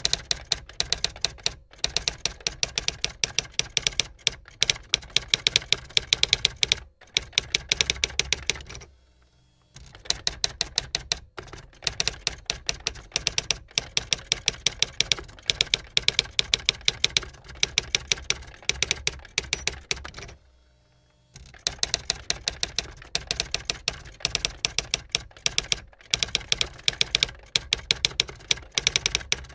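Keys of a typewriter being struck in rapid runs of sharp clicks, with short pauses about 9 and 21 seconds in.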